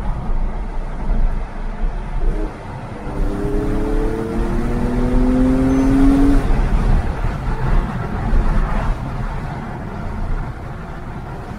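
Porsche 997 Carrera S's flat-six engine accelerating, heard through open windows over steady road and wind noise. About three seconds in its pitch climbs for some three seconds, then drops away suddenly.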